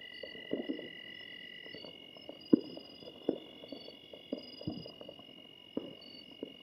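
Distant New Year's fireworks and firecrackers going off across a valley: scattered sharp bangs, the loudest about two and a half seconds in, over a low crackling rumble and the steady high chirring of insects.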